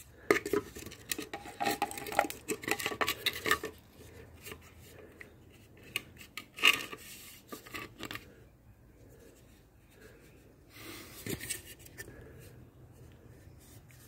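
Plastic car fog lamp units handled and turned over in the hand: a dense run of clicks, rattles and rubbing for the first three or so seconds, a single sharp knock about halfway through, and a shorter run of clicks about three quarters of the way through.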